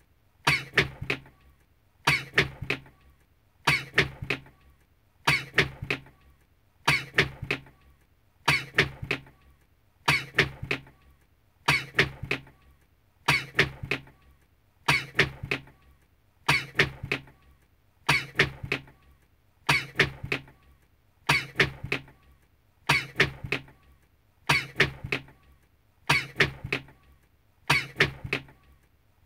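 One recorded sneeze ("achoo") looped over and over, repeating evenly a little more than once every second and a half.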